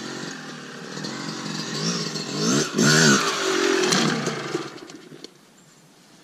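Two-stroke dirt bike engine revving in quick bursts, its pitch rising and falling, loudest about three seconds in. It dies away about five seconds in.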